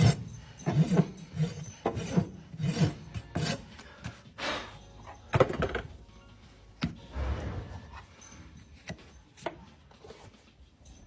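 A farrier's rasp filing a horse's hoof in repeated strokes, loud and frequent at first, then fainter and more spaced out after about halfway.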